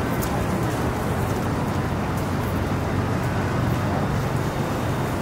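Steady city street ambience: a continuous wash of traffic and engine noise under a low, even hum, with no single event standing out.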